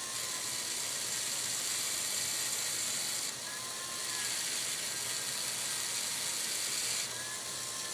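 Model locomotive's wheels being scrubbed clean: a steady hissing rub with a faint thin whine that comes and goes.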